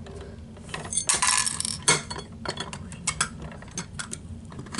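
Diecast toy front-loader garbage truck being worked by hand, its stiff lift arms and toy dumpster making small clicks and clinks, with a short scraping rattle about a second in.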